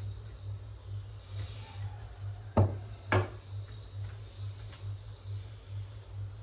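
Two sharp knocks about half a second apart as parts of an opened all-in-one PC are handled, over a steady low hum that pulses evenly.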